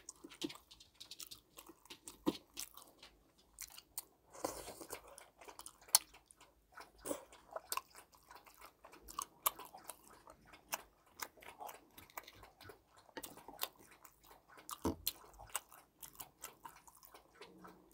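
Close-miked eating: chewing and crunching on battered Korean fried snacks (twigim) and tteokbokki. A metal fork cutting and tapping on the plate adds irregular short sharp clicks, the sharpest about six seconds in.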